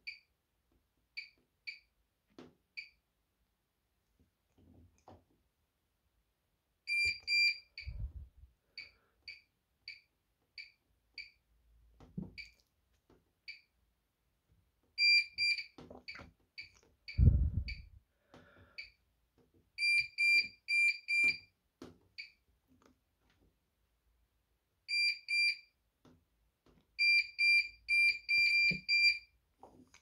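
Bosch Serie 6 washing machine control panel beeping as its buttons are pressed while the 'Finish in' delay time is set: short single beeps of one steady pitch, and quick runs of about four beeps a second while a button is held. A few dull thumps come in between, the loudest about two-thirds of the way in.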